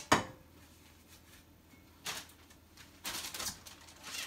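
A single sharp knock just after the start, then a plastic bag crinkling and rustling in bursts from about two seconds in as it is handled and opened.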